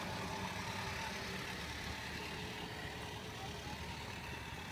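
A battery-powered ride-on toy fire truck driving on wet asphalt: a steady low hum from its electric drive motors, with a faint whine and the rumble of its plastic wheels.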